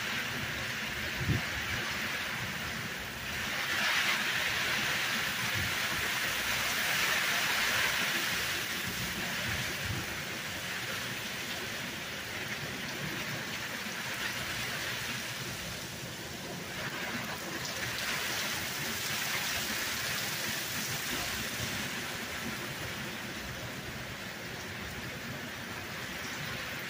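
Steady rain from a hurricane's outer rain band falling on a street, growing heavier a few seconds in and again later on. There is one brief low thump about a second in.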